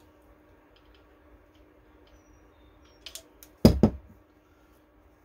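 Small clicks from handling a metal grease gun against a chainsaw crankshaft, then a sharp double knock a little past three and a half seconds in as the metal grease gun is set down on the workbench.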